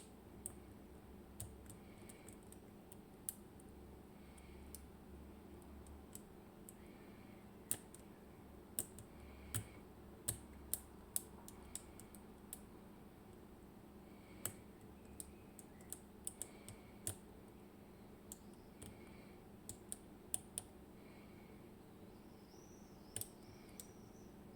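Faint, irregular small clicks of a lock pick working the finger pins of an IKON SK6 euro cylinder, metal pick and pins ticking inside the keyway as the pins are lifted and set.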